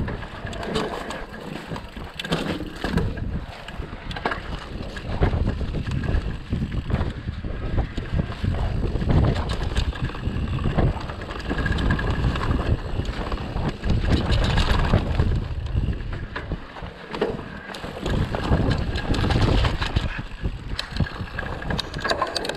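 Mountain bike ridden over a rough track: tyres crunching and the bike rattling in irregular knocks, with wind buffeting the microphone in gusts.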